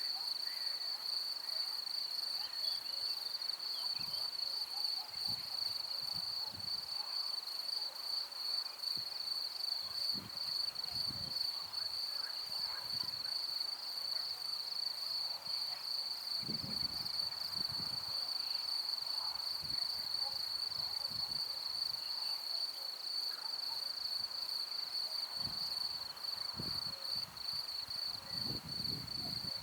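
Crickets chirring in a continuous, finely pulsing high trill, with occasional soft low rumbles under it.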